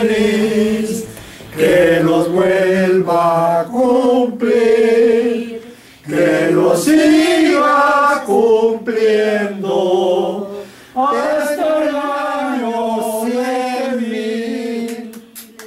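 A small group of men and women singing a Spanish birthday song together, in phrases of long held notes. The singing ends shortly before the end.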